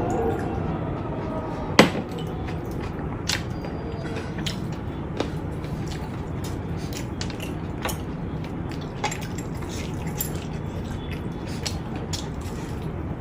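Eating sounds: scattered small clicks and taps of chewing and tableware, with one sharp clink about two seconds in, over a steady low hum.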